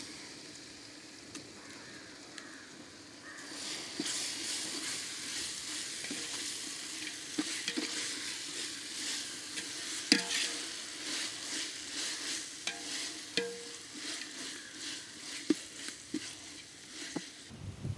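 Onions, green chillies and ginger-garlic paste frying in hot oil in a pot, sizzling while being stirred, with scattered knocks of the stirring utensil against the pot. The sizzle grows louder about three and a half seconds in, once the stirring picks up.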